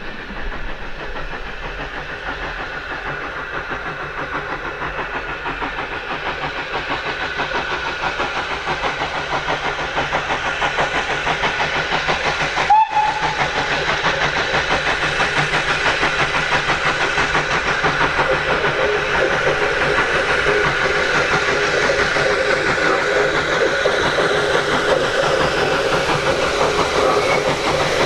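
Steam locomotive working a train towards the listener, its exhaust beats and running sound growing steadily louder, with a very brief break in the sound about halfway through.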